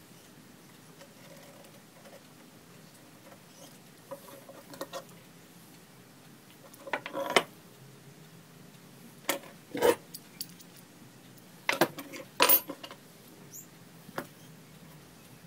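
Pencil marking a piece of card and a steel rule being handled and laid on a wooden workbench: faint scratching with a few sharp taps and clicks, the loudest about seven, ten and twelve and a half seconds in.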